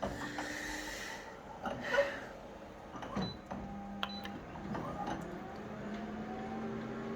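Konica Minolta photocopier starting a copy: a few clicks, then a steady motor hum with a faint rising whine near the end.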